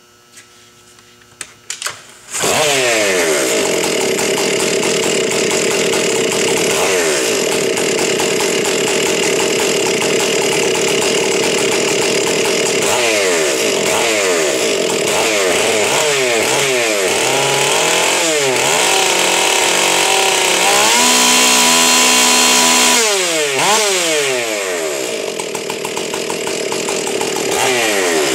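Ported and decked Stihl MS 461 Magnum two-stroke chainsaw starting a little over two seconds in and running at high revs, turning about 14,000 to 14,500 rpm, its pitch dipping and climbing back several times. It cuts off near the end.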